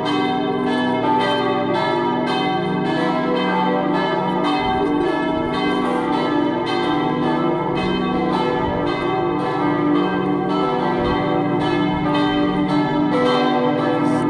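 Plenum of four swinging church bells (Si2, Ré3, Mi3 and Sol3; two cast in 1804, two in 1855) ringing together. Strikes overlap several times a second over a steady, full ringing hum.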